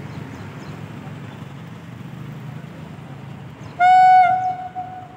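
WAG-9 electric locomotive's horn sounding one loud blast almost four seconds in, strong for about half a second and then trailing off, over a steady low rumble.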